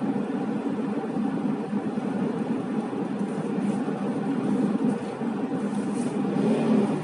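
Steady engine and road noise of a car in motion, heard from inside the cabin.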